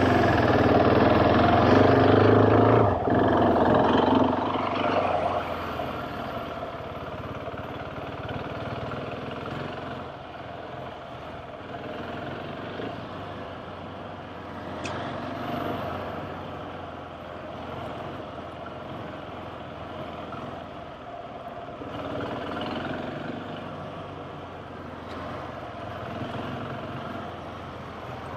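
Large trail motorcycle engine running, loud for the first three seconds or so, then settling to a quieter, steady run.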